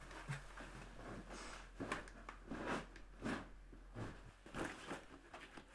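Faint rustling and handling noises, with soft scuffs and brushes of clothing and small objects coming at irregular intervals, about one every half second to a second.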